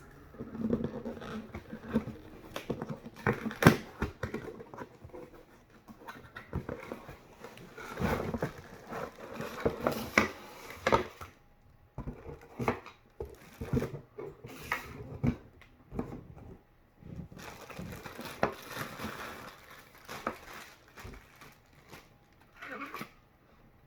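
Packaging being opened and handled: cardboard and plastic rustling and crinkling, broken by irregular clicks and knocks.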